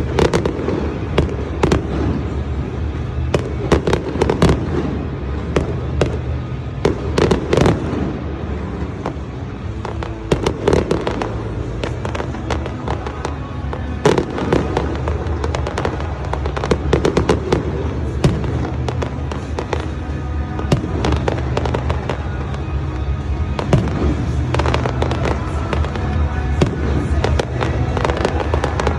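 Fireworks display: many sharp bangs and crackles in irregular rapid clusters, over music with a steady bass line.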